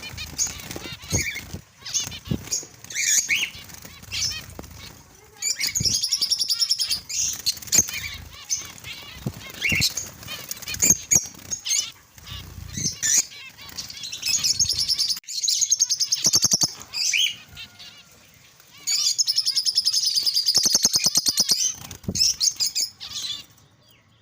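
Pet finches chirping in short high calls, with several runs of rapid repeated notes lasting a second or two each, among scattered wing flutters and small knocks.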